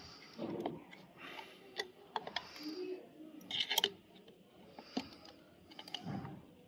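Scattered light clicks and taps of small parts and hand tools being handled while an inline diesel injection pump is reassembled, with a cluster of clicks just under four seconds in and brief soft scraping between them.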